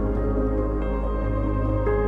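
Ambient background music: sustained chords over a steady deep bass, the notes changing about once a second.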